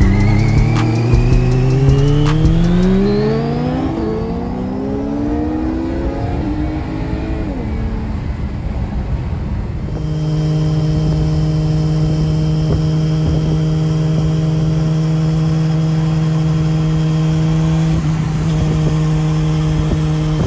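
Yamaha R6 sport bike's inline-four engine accelerating hard through the gears, its pitch climbing and dropping back at each upshift, before easing off about eight seconds in. For the second half a steady, unchanging drone holds, broken briefly near the end.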